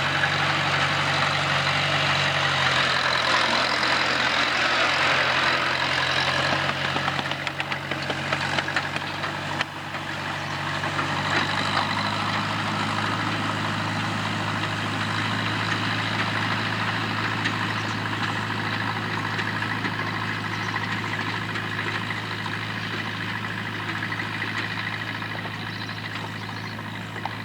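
Farm tractor engine running steadily as it pulls a hay rake, growing gradually fainter toward the end.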